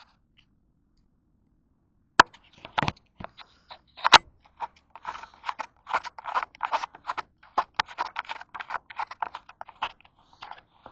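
A quick, irregular series of small clicks and knocks, starting about two seconds in, from hard parts or tools being handled and set down.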